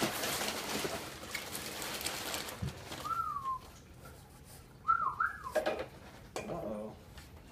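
Cardboard and plastic packaging rustling and crinkling as a box is opened by hand. After that come two short whistle-like notes: one falls in pitch, and a second wavers up and down.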